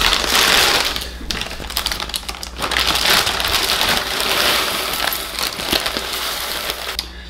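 A clear plastic bag crinkling and rustling as it is handled and opened, with cereal flakes shaken out of it into a ceramic bowl. It comes in two long stretches of dense crinkly noise with a short lull about a second in.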